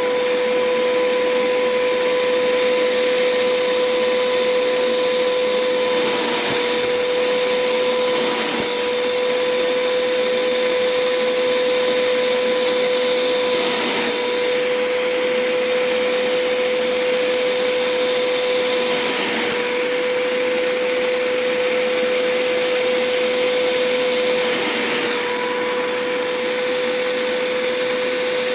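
Hoover Power Scrub Deluxe carpet cleaner running with its upholstery tool: a steady motor whine and suction hiss. The whine shifts briefly every few seconds as the tool is worked across the couch fabric, sucking up the sprayed water.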